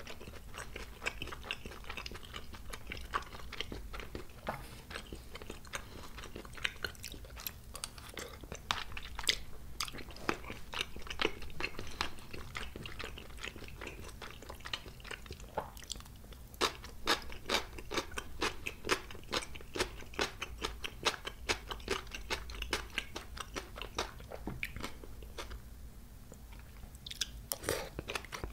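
Close-miked chewing of spicy tteokbokki rice cakes, made up of many small mouth clicks. In the middle stretch there is sharper crunching, as pickled yellow radish is eaten. The chewing eases off briefly near the end and then picks up again.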